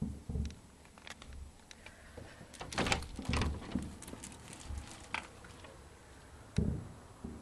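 Irregular heavy thumps, low and dull, coming about a second or two apart, the loudest about three seconds in and again near the end, with a few sharper clicks mixed in. The recorder takes the ongoing thumping for distant fireworks.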